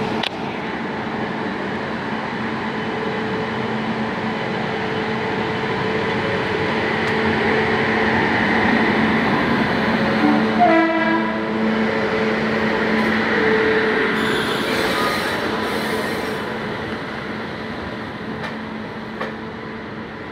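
A WAP-7 electric locomotive pulls out and rolls slowly past, with a steady electric hum over the rolling noise. It is loudest as the locomotive goes by, and there is a brief tone about halfway through. The passenger coaches then roll past as the sound slowly fades.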